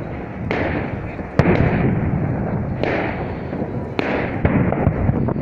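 Fireworks display: aerial shells bursting one after another, each a sudden bang that fades away, the sharpest cracks about a second and a half in and again at about four seconds, over a continuous background noise.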